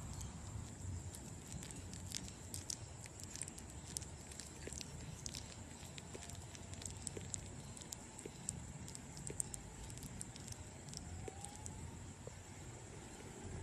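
Baby fruit bat chewing a piece of banana: quiet, irregular little wet clicks and smacks over a low background hiss.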